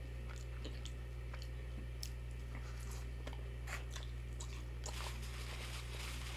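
Close-up chewing of crunchy fried onion rings: soft, irregular crisp crackles and mouth sounds, over a steady low electrical hum.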